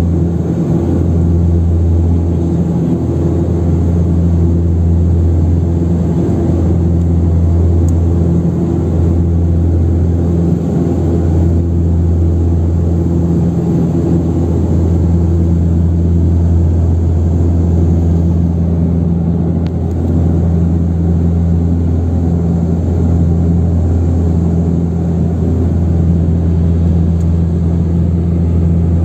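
Cabin drone of an Antonov An-24RV's twin Ivchenko AI-24 turboprop engines and propellers in flight: a loud, steady low hum with a slow rise and fall.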